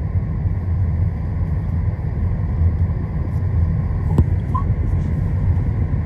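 Car driving along, a steady low rumble of road and engine noise heard inside the cabin, with a single sharp click about four seconds in.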